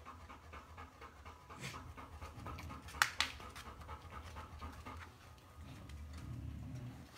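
Puppies panting close to the microphone, with small ticks and one sharp click about three seconds in.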